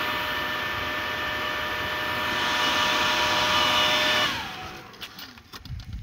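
Battery-powered blower forcing air into a homemade barrel bee smoker, running with a steady motor whine and rush of air. About four seconds in it is switched off and winds down, falling in pitch, leaving a few light knocks and rustles.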